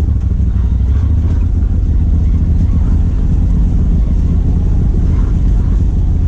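Side-by-side UTV engine running at low, steady revs as the machine crawls along a rough dirt trail, heard from inside the open cab.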